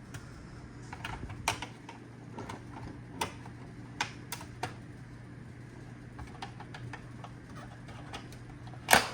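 Scattered light clicks and taps of the plastic housing and parts of an iRobot Roomba 690 being handled during disassembly, with a louder knock near the end.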